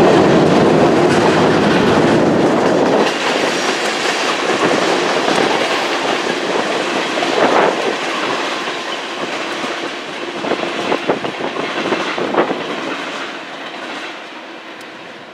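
Freight cars rolling past on steel rails, wheels clacking over the track. The deep rumble drops away about three seconds in, and the sound fades as the train moves off, with a few sharp clacks along the way.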